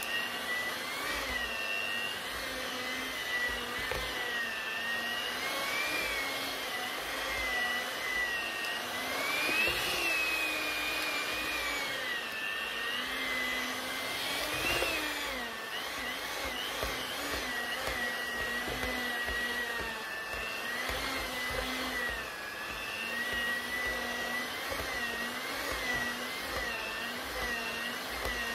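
Electric mixer motor kneading bread dough with twin spiral dough hooks: a steady whine whose pitch wavers up and down, rising briefly about ten and fifteen seconds in.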